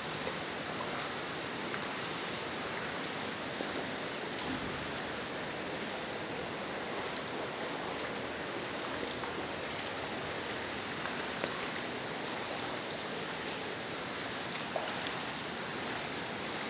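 Steady wash of water noise from someone wading through shallow floodwater, feet stirring and splashing the water.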